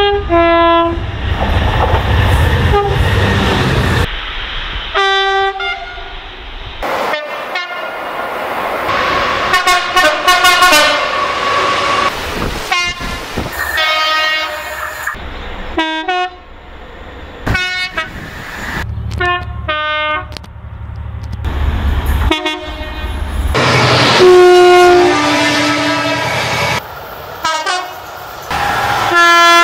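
A series of British diesel locomotive air horns, about a dozen short blasts from different locomotives in turn, many of them two-tone with a high and a low note, broken by sudden cuts. The low rumble of a locomotive engine and wheels on the rails run beneath some of the blasts.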